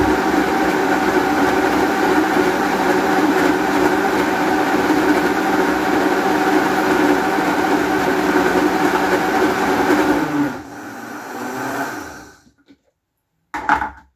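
Electric countertop blender running steadily, blending avocado with milk and sugar into a thick smoothie. About ten seconds in it is switched off and the motor winds down with falling pitch to a stop; a brief knock follows near the end.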